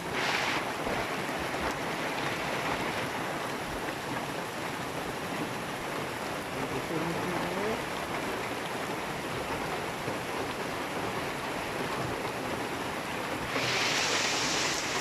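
Steady heavy rain, an even hiss without pauses, with a louder, brighter hiss coming in near the end.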